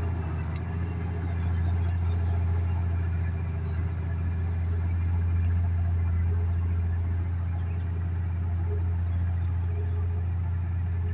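Heavy diesel machine engine running steadily at an even speed, with a deep, unchanging hum.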